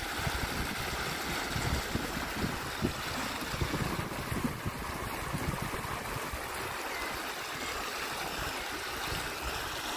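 Fast river current running steadily over a shallow riffle, with splashing at the surface. Wind buffets the microphone in low, uneven gusts.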